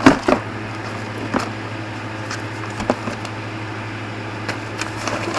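Steady low hum, like a fan or air conditioner running, with a few light clicks and taps of small parts being handled.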